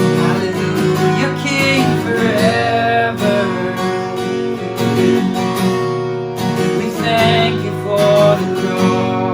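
Instrumental worship music: acoustic guitar strumming chords, with a few held melody notes standing out over it twice.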